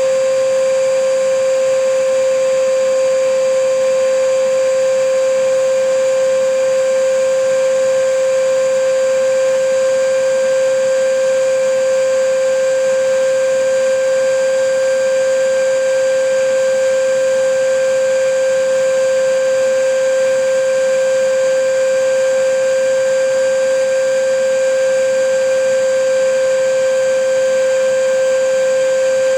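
Vacuum cleaner motor running continuously, a steady whine with a strong hum and an even rushing hiss. It is played as white noise to lull a baby to sleep.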